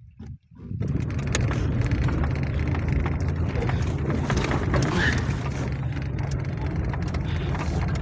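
A vehicle running, a steady low rumble heard from inside its cabin, beginning abruptly about a second in.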